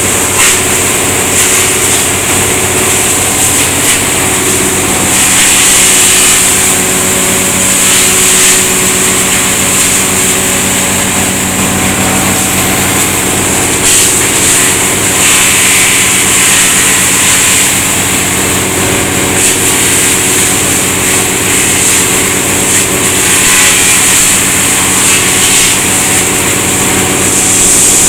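Wood chipper for shredding wood veneer running loud and steady, a constant engine drone under a high, hissing grind, swelling a little louder every few seconds.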